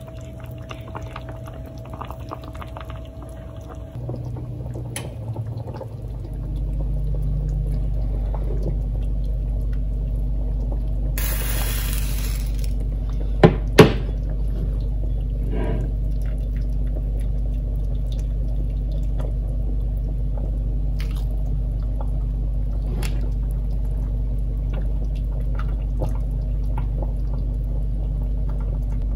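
Soup being served into a ceramic bowl: liquid pouring and spoon-and-dish clinks, with two sharp knocks about halfway through. A steady low hum comes in several seconds in and underlies the rest.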